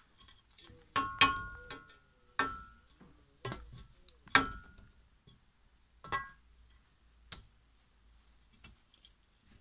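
Small hard parts of an aluminium wardrobe door fitting being handled: a series of sharp clinks and knocks, several with a short ring. They are loudest about a second in and again just after four seconds, and stop after about seven and a half seconds.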